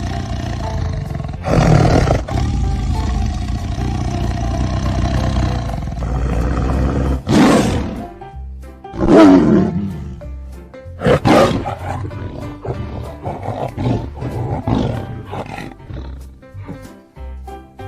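Tiger roaring: a low steady rumble with one loud roar about two seconds in, then three more loud roars between about seven and twelve seconds, one sliding down in pitch. Music plays underneath.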